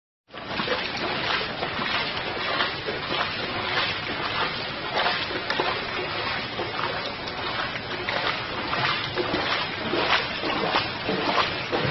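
Footsteps splashing through shallow floodwater on a paved walkway, about two sloshing steps a second at a walking pace.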